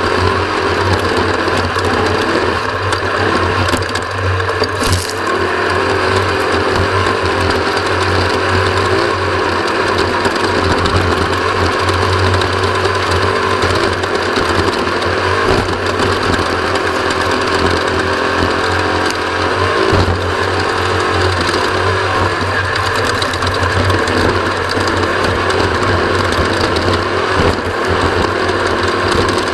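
Off-road race vehicle under way at speed: a steady engine drone with constant rattling and knocking from the chassis over rough ground, heard from on board.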